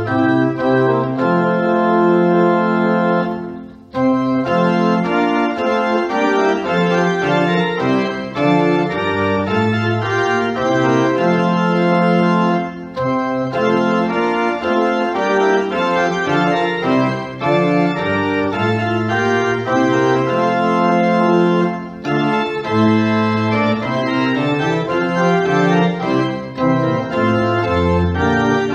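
Organ playing slow music of held chords over a moving bass line, with a brief break about four seconds in.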